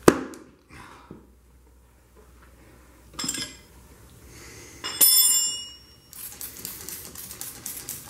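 Steel tire irons knocking, clinking and scraping against a motorcycle wheel rim while levering a tight tire bead on by hand. A sharp knock at the start, a short clink about three seconds in and a ringing metal clang about five seconds in, then scraping and rustling.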